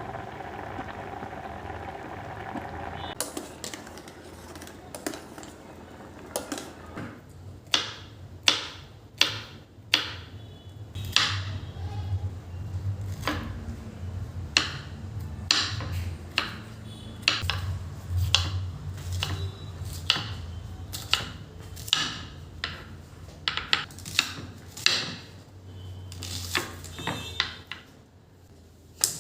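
Steel dishes and utensils clinking and knocking as they are handled, a sharp knock every half second to a second, over a low steady hum.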